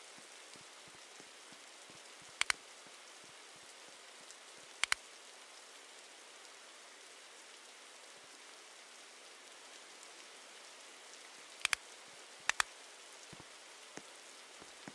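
Steady hiss of rain, broken four times by sharp double clicks.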